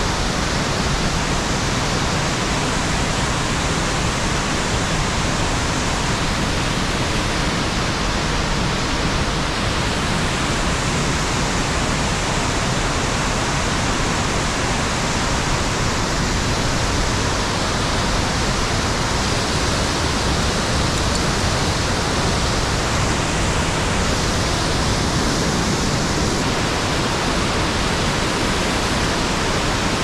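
Loud, steady rushing of a mountain waterfall, an even roar of falling water that does not change.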